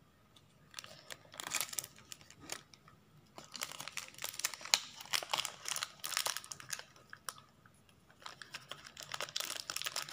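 Crimped plastic blind-bag sachets being handled and torn open: crinkling and tearing crackles in three spells, with short quiet gaps between them.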